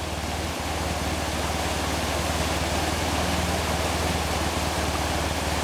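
River water rushing, with a BMW HP2's flat-twin engine running steadily at low revs underneath.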